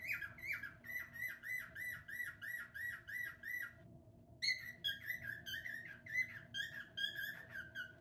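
Male cockatiel singing: a run of quick repeated whistled notes, about four a second, breaks off about four seconds in, then resumes as a phrase of more varied notes.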